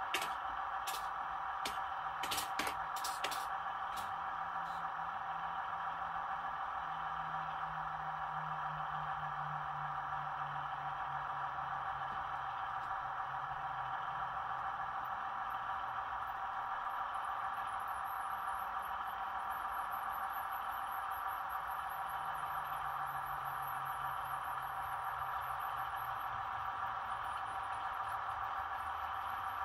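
Model railway trains running: a low motor hum that comes and goes, slightly falling in pitch, over a steady hiss. A quick run of sharp clicks comes in the first few seconds.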